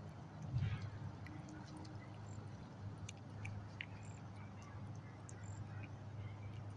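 A cat chewing and licking roasted turkey from a plate: soft, irregular wet clicks and smacks, with one louder knock about half a second in, over a steady low hum.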